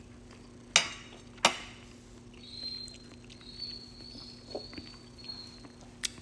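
Two sharp clicks about a second in, like a utensil striking a plate, and another near the end, with a faint, wavering high whine in between over a low steady hum.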